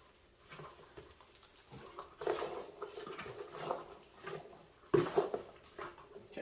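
Rustling and crinkling of packing material being handled in a cardboard box, in irregular bursts, the sharpest about five seconds in.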